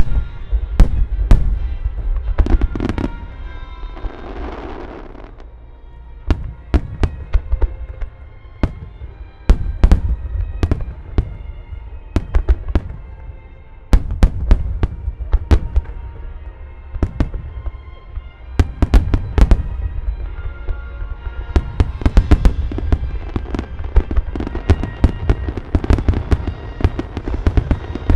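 Large aerial fireworks shells launching and bursting in rapid succession, a steady barrage of deep booms and sharp bangs, fired in time to orchestral theme music playing over loudspeakers. A brief hiss comes about four seconds in.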